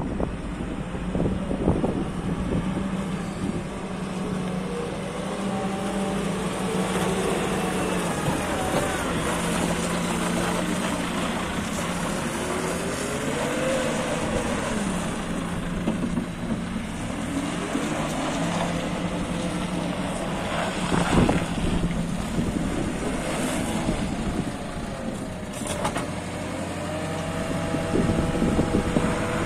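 Diesel engine of a JCB 540-170 telehandler (110 hp JCB engine) running steadily, its pitch rising and falling at times, with a few knocks, the loudest about two-thirds of the way in.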